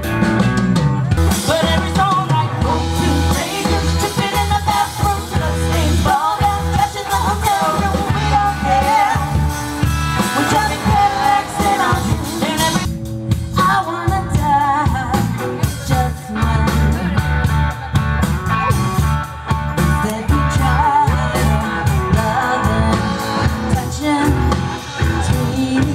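Live rock band playing: a woman singing lead over electric guitar, bass guitar and a drum kit.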